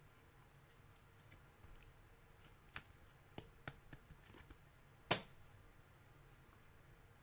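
Trading cards being handled: faint rustles and small clicks, with one sharper click about five seconds in.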